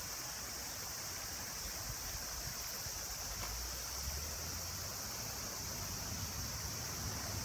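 Shallow stream running over rocks, a steady rushing of water, with a constant high-pitched hiss above it.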